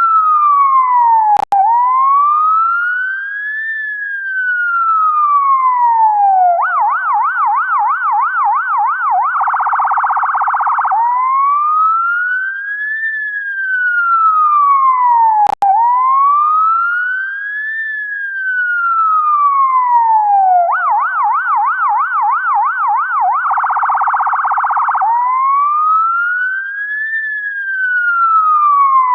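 UK ambulance electronic siren cycling through its tones: a slow rising-and-falling wail, then a quick yelp of several sweeps a second, then a very fast warble for about two seconds before going back to the wail. The cycle runs twice, with a sharp momentary dropout about a second and a half in and again about halfway through.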